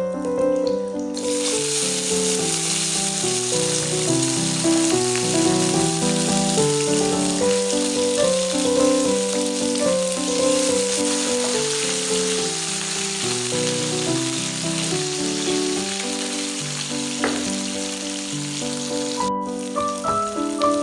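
Chicken karahi frying in hot oil, sizzling steadily. It starts about a second in and cuts off suddenly near the end. Background music of steady melodic notes plays throughout.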